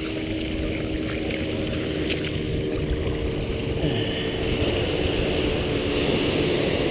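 Wind rumbling on the microphone and shallow surf washing over sand, the fizz of the wash swelling through the second half. A steady low hum of a few tones runs under it.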